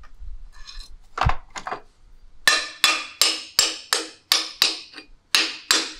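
Hammer tapping on a Minsk 125 two-stroke engine assembly to drive a part home. A couple of light knocks come first, then from about two and a half seconds a steady run of sharp metallic strikes, about three a second, each ringing briefly.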